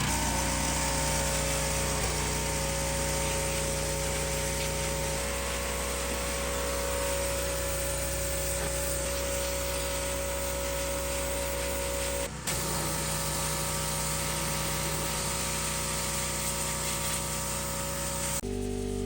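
A motor runs steadily with a constant whine over a noisy mechanical rush, shifting in tone about five seconds in and dropping out for a moment about twelve seconds in. Near the end it gives way abruptly to a different steady hum.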